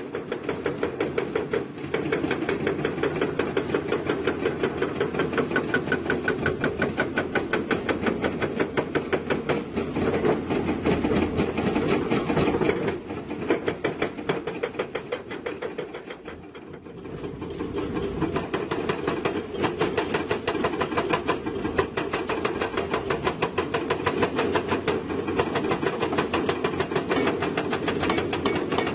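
Heavy diesel engine of a working excavator running hard with a fast, even firing pulse. It eases off briefly a little past halfway, then picks back up.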